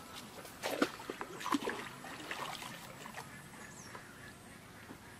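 Water splashing and trickling as a fishing net is swept through a shallow pond, in a cluster of sharp splashes in the first three seconds before it settles. A few short animal calls sound behind it.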